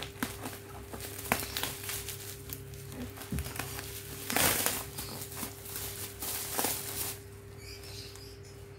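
Packaging rustling, crinkling and clicking as it is handled and opened by hand, with a louder rustle about halfway through. A faint steady hum runs underneath.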